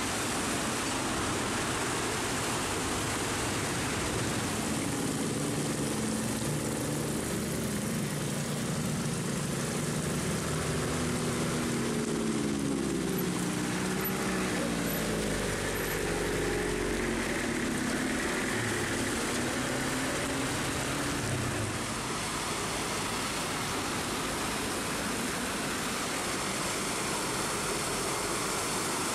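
Steady heavy rain hissing, with a truck's diesel engine passing by from about five seconds in to about eighteen seconds in, its pitch sliding up and down as it goes.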